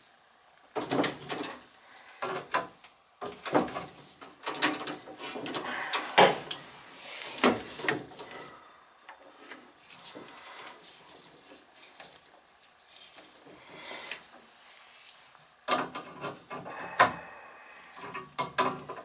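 Old shut-off valves on copper water lines being turned by hand to shut the water off, giving irregular scraping, creaking and sharp knocks. The sounds are busiest in the first several seconds, quieter in the middle, and pick up again near the end.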